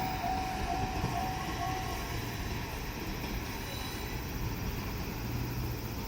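Diesel railcar running over the rails at a level crossing, a continuous low rumble slowly fading. A level crossing bell rings in steady repeated tones and stops about two seconds in.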